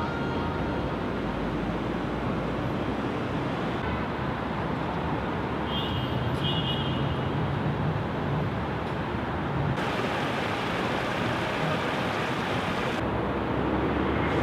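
Steady city street traffic noise, a continuous even hum of passing cars, with a few abrupt changes in tone.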